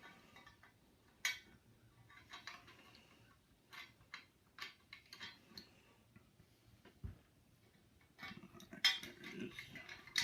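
Steel parts of a Stevens Model 820 pump shotgun clicking and scraping as the bolt is slid along its groove into the receiver. Light scattered clicks, then a busier run of scraping and clinks about eight seconds in.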